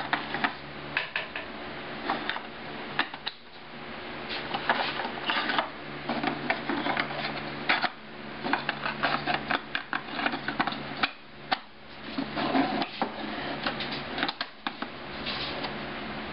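Small hidden drawers and loose parts of an antique portable writing desk being handled, giving repeated clicks, knocks and light clatter over a steady low hum.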